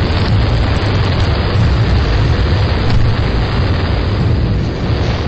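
Cartoon fight sound effects: a loud, continuous explosive rumble with a deep low boom under dense noise, easing slightly near the end.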